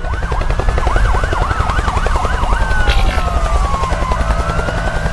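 Several emergency-vehicle sirens sounding at once: a fast up-and-down yelp for the first two seconds, then slower overlapping wails that fall and rise, over a heavy low rumble with a rapid chopping pulse.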